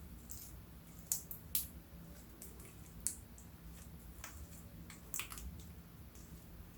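Slime being worked by hand as makeup is mixed into it: soft squishing with scattered sharp, sticky clicks and pops, about five of them spread across the stretch.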